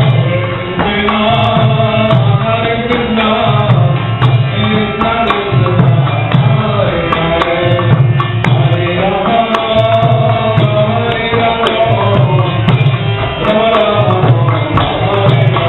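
Devotional kirtan: a group singing a chant together over a steady drum beat, with regular sharp clicks keeping time.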